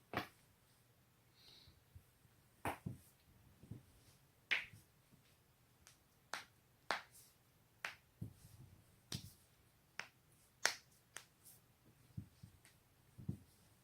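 Neck and back joints cracking: a string of sharp pops, about fifteen at uneven intervals, some coming as quick pairs.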